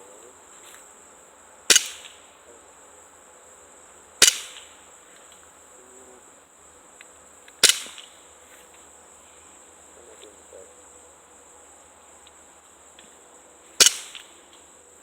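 BB gun firing four single shots, each a sharp pop a few seconds apart, over a steady high-pitched buzz of insects.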